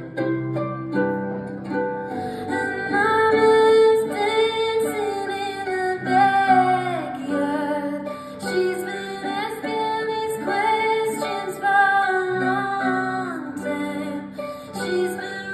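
Live music: a woman singing a slow melody to harp accompaniment.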